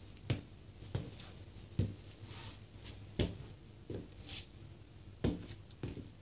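Rubber cupsoles of white Nike Air Force 1 sneakers thudding down on a tile floor, about seven irregular knocks.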